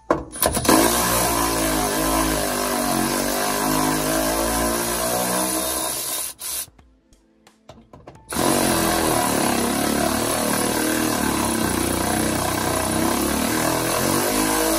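Impact wrench running on the seat's mounting bolts to undo them, in two long runs with a short stop about six and a half seconds in. Its pitch shifts as it hammers.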